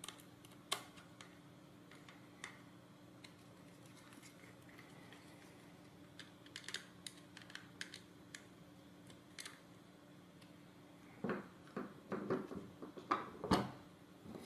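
Small bolts being tightened into a metal robot-car chassis with a screwdriver: faint, scattered clicks and ticks of the screwdriver and metal parts over a faint steady low hum. Near the end comes a run of louder knocks and clatter as the chassis and the screwdriver are set down on the table.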